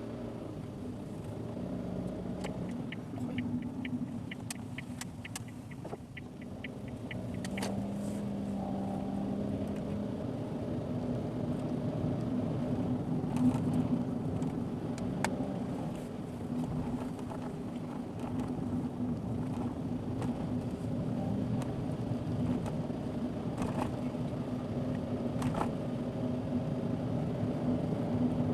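Car driving along, its engine humming steadily over tyre and road noise. A quick run of evenly spaced ticks comes a few seconds in, and a few sharp single clicks come later.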